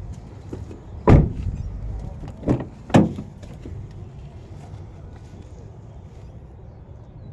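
Three heavy thuds of the 2014 Honda Pilot's doors being shut, the first the loudest, the last two about half a second apart.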